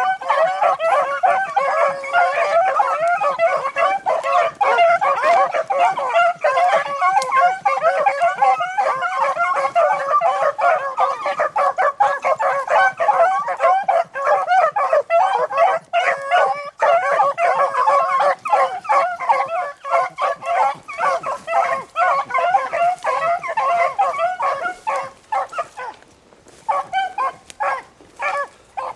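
A pack of beagles baying together in full cry as they run a rabbit's trail: many overlapping voices at once, thinning to a few separate cries near the end.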